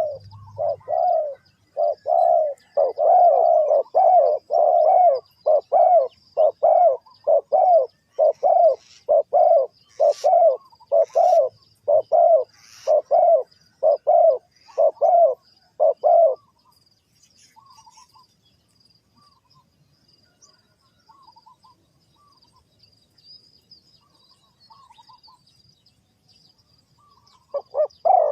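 Spotted dove cooing in a long, fast series of low coos, about two a second. The cooing stops partway through, leaving faint high chirps, and starts again near the end.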